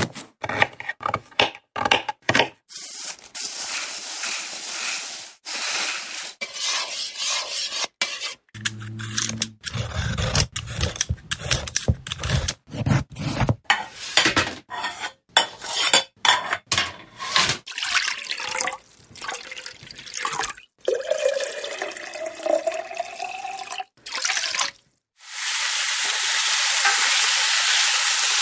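A string of kitchen sounds cut one after another: dishes, pots and cutlery clattering, stirring and splashing water, then a steady sizzling hiss of frying that starts about three seconds before the end.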